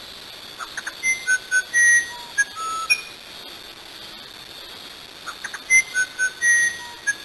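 Musician wren (uirapuru) singing: two phrases of clear, separate whistled notes, each note at a different pitch. The first phrase starts about half a second in and the second about five seconds in.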